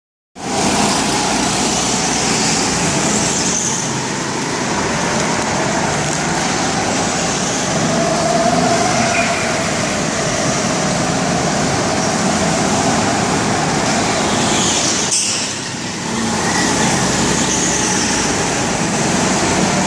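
Go-karts running laps on an indoor track: a steady motor drone whose pitch slowly rises and falls as karts speed up and pass, with a brief dip in loudness about fifteen seconds in.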